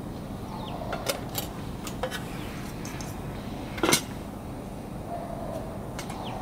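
Metal lid of a Coleman camp rice cooker pot set down onto the pot with one loud clank just before four seconds in, after a few lighter clicks of handling.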